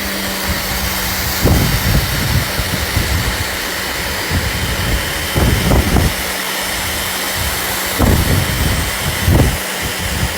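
Giraffe plug-in electric pressure washer spraying through a 15-degree tip: a steady hiss of the water jet over a motor hum, with the spray noise surging louder several times.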